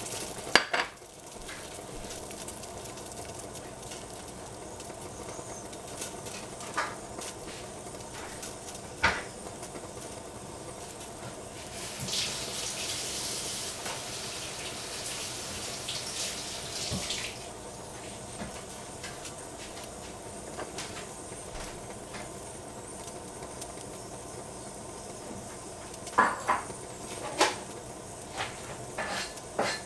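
Saucepan of water with sliced carrots heating on a stovetop burner: a steady hiss, with a louder hissing rush for about five seconds midway and a few light clicks and knocks near the end.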